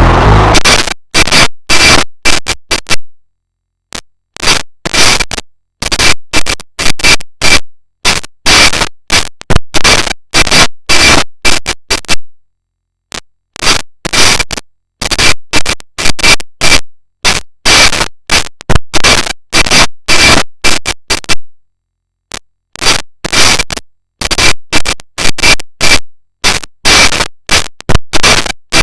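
Mock EAS alarm audio pushed into heavy clipping: harsh static-like noise chopped into rapid bursts that cut in and out with abrupt dead silences. A faint tone near 2 kHz runs inside the bursts, and longer silent gaps come a few seconds in, around the middle, and past two-thirds of the way through.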